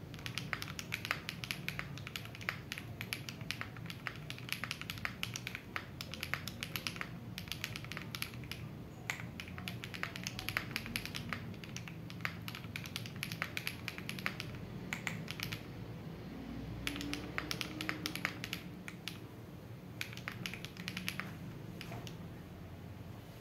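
Typing on a gasket-mounted Weikav Sugar65 mechanical keyboard with Sillyworks Hyacinth V2U switches, an FR4 plate and doubleshot ABS keycaps: fast runs of keystroke clacks with short pauses between them.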